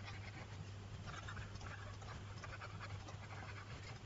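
Faint, irregular scratching of a stylus on a tablet screen as words are handwritten, over a steady low electrical hum.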